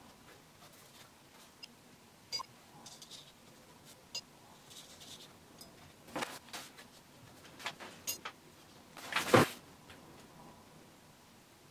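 Light scratching of a paintbrush on watercolour paper with a few small taps, then paper handling, loudest about nine seconds in, as the printed reference photo beside the painting is moved.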